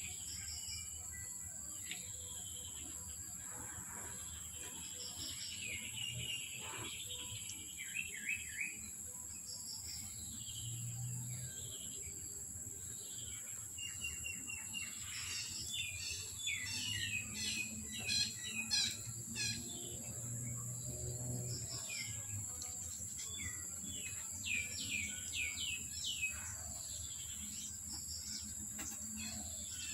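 Songbirds chirping and calling in several bursts of quick, downward-sweeping notes, busiest about halfway through, over a steady high-pitched insect drone.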